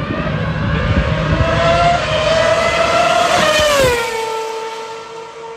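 Ferrari Formula 1 car accelerating up the straight and passing close by at speed. Its engine note climbs in pitch and grows louder as it approaches, drops sharply in pitch as it goes past about three and a half seconds in, then fades away.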